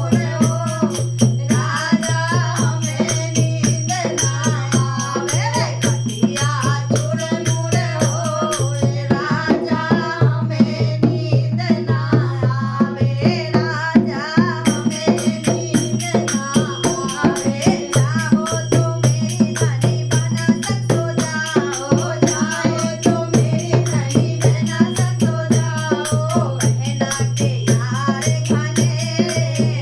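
A woman singing a Hindi folk song over a fast, steady rattling percussion beat and a low drone.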